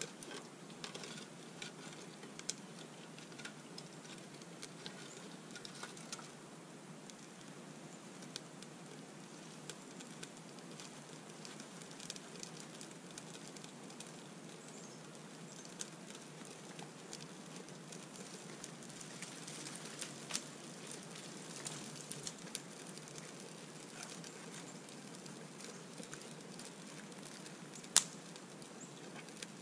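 Scattered soft clicks, crackles and rustles of paper and small twigs being packed into a small wood-burning camp stove and set alight, over a steady low hiss, with one sharp snap near the end.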